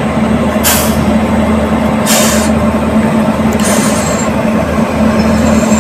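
Electric locomotive of a standing passenger train humming steadily. Three short hisses of compressed air come about a second and a half apart, typical of the air brakes being worked.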